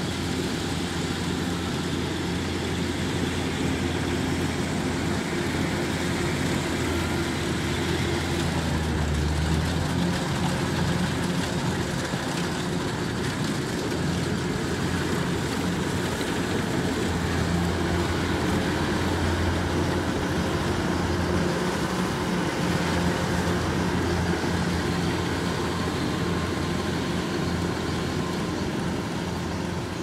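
Kubota DC-105X rice combine harvester working in the crop: its diesel engine and threshing machinery run with a steady, loud drone.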